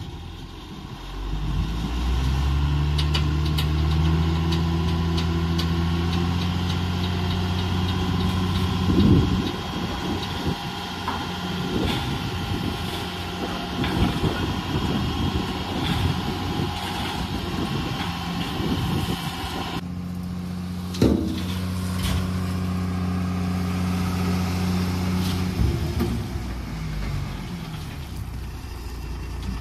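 Tata tipper truck's diesel engine revving up in the first few seconds and then running steadily at raised speed to drive the hydraulic tipping hoist while a load of red soil is dumped, with rattling and scraping of soil and stones sliding off the body.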